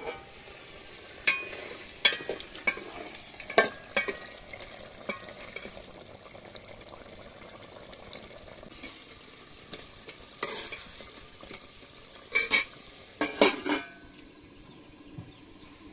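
Steel ladle clinking and scraping against a steel cooking pot as a curry is stirred, over the steady low hiss of the simmering pot. Sharp metal clanks with a short ring come in clusters early on and again near the end, as a steel plate is set on the pot as a lid.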